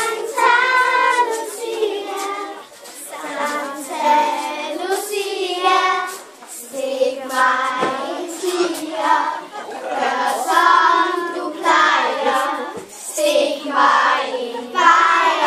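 Children's choir singing together in phrases of long held notes, with short breaks every few seconds.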